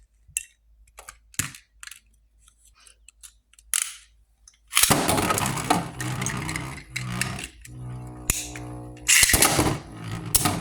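Scattered plastic clicks as Beyblade tops are readied. About five seconds in, two Beyblades (Flash Sagittario and Storm Pegasus) are launched and spin and clash in a plastic stadium: a continuous loud rattling whir with sharp knocks of the tops hitting each other near the end.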